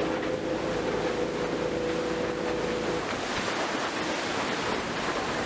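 Motorboat with twin outboard motors under way at sea: a steady engine hum over the rush of the churning wake and wind, the hum dropping away about three seconds in and leaving mostly the rush of water and wind.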